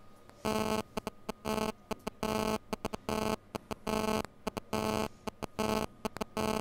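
Electronic buzzer sounding in pulses: a harsh buzzy tone switching on and off, long beeps of about a third of a second with short blips between them, starting about half a second in.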